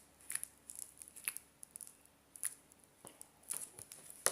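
Homemade body-wash slime being squished and stretched by hand, giving scattered short sticky clicks and squelches.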